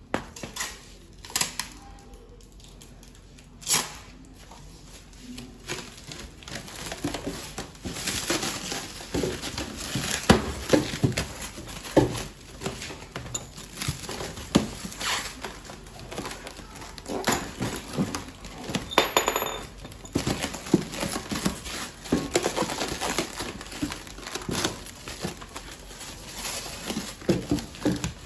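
Clear plastic stretch wrap crinkling and crackling as it is pulled taut and pressed around a box. There are a few sharp clicks in the first few seconds, then the crackling runs on densely for most of the rest.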